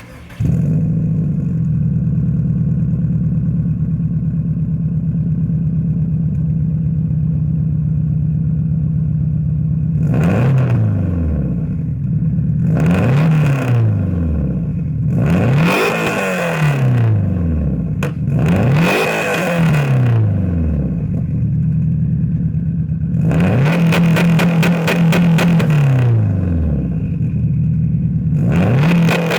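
2004 Subaru WRX STi's turbocharged flat-four with an aftermarket 3-inch turbo-back exhaust. It runs steadily for about ten seconds, then is revved in four quick blips that each fall away again, is held up for a couple of seconds, and is held steady again near the end.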